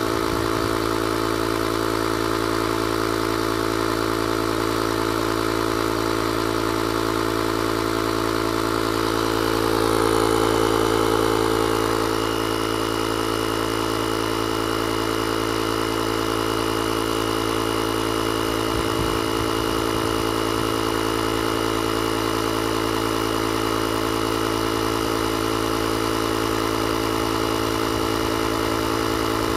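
Built-in 12-volt air compressor of a JFEGWO 6000A jump starter running steadily as it inflates a car tire, a constant motor hum. It gets slightly louder about ten seconds in, when a faint high whine joins and stays.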